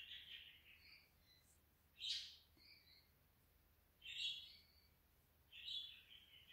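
Faint bird calls: four short chirping calls, high in pitch, about two seconds apart.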